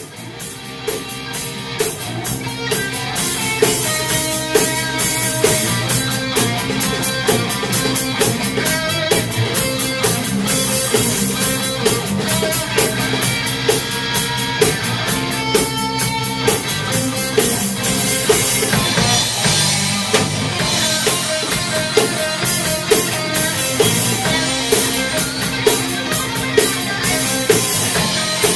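Live rock band playing: electric guitar over a drum kit keeping a steady beat, the sound swelling up over the first few seconds.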